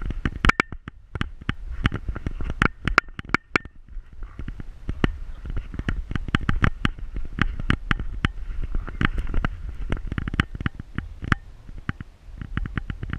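Rubbing and contact noise from a camera strapped to a dog's back: dense, irregular sharp clicks and knocks as the mount shifts with the dog's movements, over a steady low rumble.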